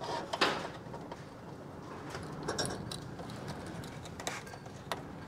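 Faint handling sounds of electrical wire being stripped and joined with a wire nut: a few light clicks and scrapes.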